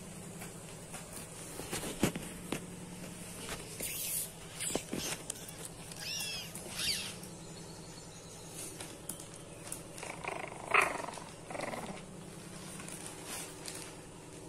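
Plastic sheeting rustling and crackling as Shih Tzu puppies move about on it, over a steady low hum. There are scattered clicks, a few short high squeaks near the middle, and a short louder sound about two-thirds of the way through.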